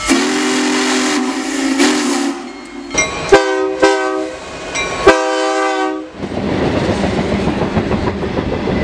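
A train horn sounds a held chord of several notes, then two more loud blasts. After that comes the steady rushing rumble of the train rolling past.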